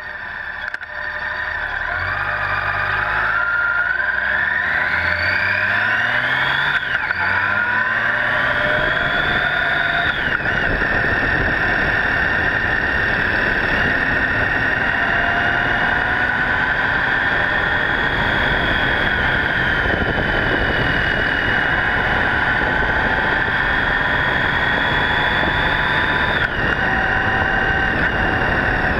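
2012 Honda GL1800 Gold Wing's flat-six engine pulling away and accelerating through the gears, its pitch climbing and dropping back at each shift over the first ten seconds or so. It then settles into a steady cruise under heavy wind and tyre noise picked up by a camera mounted low by the front wheel.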